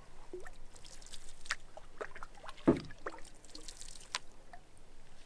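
Canoe paddles dipping and pulling through calm lake water, with small splashes and drips falling from the blades, and one low thunk about two and a half seconds in.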